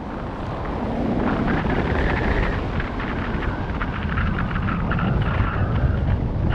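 Wind buffeting the microphone of a jumper's body-mounted camera during a parachute descent, a steady rumble with crackling gusts that grows louder about a second in.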